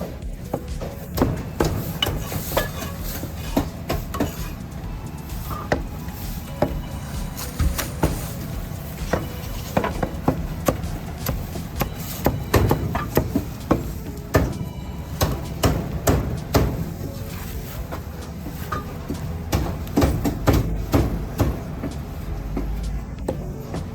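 Cleaver chopping roast meat on a wooden chopping block: many sharp knocks at an uneven pace, about one or two a second.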